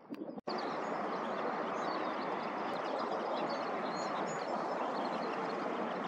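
Many short, high bird chirps scattered over a steady rushing background noise. The sound cuts out briefly about half a second in, then runs on at an even level.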